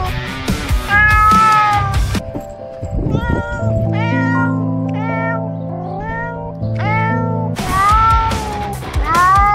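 A domestic cat meowing again and again: longer drawn-out meows near the start and end, and a quick string of short meows in the middle. Background music with sustained notes plays under it.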